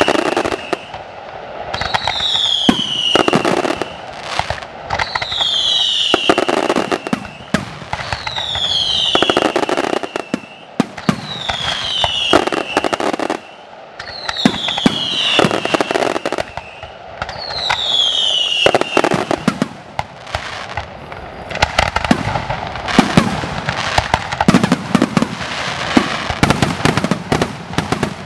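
Fireworks display: sharp bangs and crackling from bursting shells and ground effects. For most of the stretch a high whistle falls in pitch about every three seconds; it stops near the end, and the bangs and crackling grow denser.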